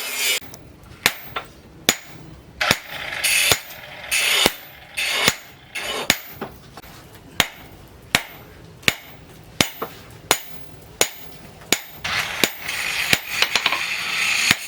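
Blacksmith's hand hammer forging a rebar knife blank on an anvil: a steady run of about twenty metallic blows, roughly one every three-quarters of a second.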